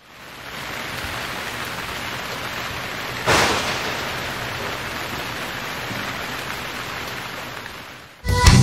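Rain sound effect: a steady hiss of rain fading in, with a sudden louder crash about three seconds in that dies away over a second, then the rain fades out. Loud music cuts in at the very end.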